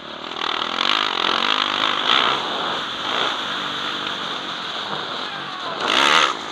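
Motocross bike engine revving hard as the rider accelerates down the track, heard through a helmet camera with a constant rush of wind noise. About six seconds in, another motocross bike comes up close alongside, the loudest moment.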